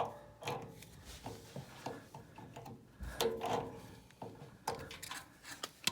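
Handling noises inside a furnace's blower compartment: scattered clicks, knocks and rubbing as the two wire leads are pulled off the blower motor's run capacitor.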